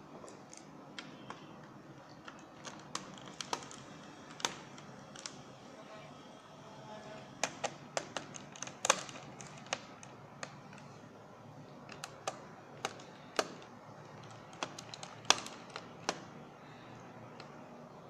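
Irregular small clicks and taps of a screwdriver working the keyboard screws out of the underside of an HP ProBook 6550b laptop, a few of them sharper and louder than the rest.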